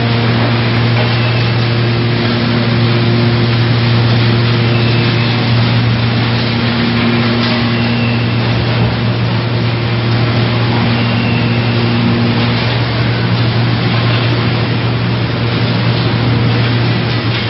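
Composting plant's green-waste shredding and conveyor line running steadily: a constant low hum under an even mechanical rush, without a break.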